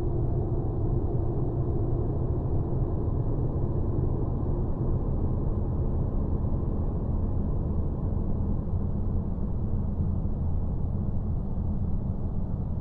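A planetary 'space sound': a steady low rumbling drone, with faint held tones above it that fade out in the first couple of seconds.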